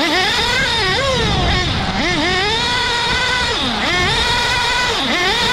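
A 1/8-scale off-road RC buggy's motor heard up close, revving hard. Its pitch drops and climbs back up about five times as the buggy brakes and accelerates through the turns.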